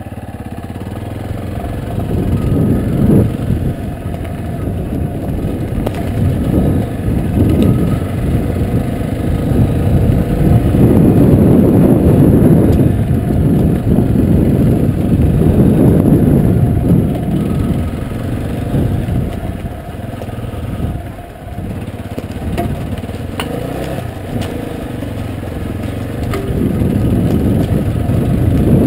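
Yamaha Serow's air-cooled single-cylinder four-stroke engine running under way off-road, its loudness swelling and dropping every few seconds as the throttle is opened and closed.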